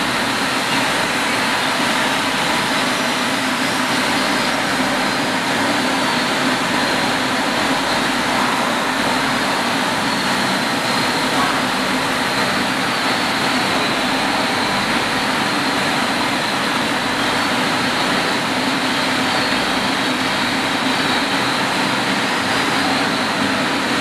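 Machinery on a fruit drying processing line running steadily. It makes a continuous dense hum and hiss with a faint high whine, unchanging throughout.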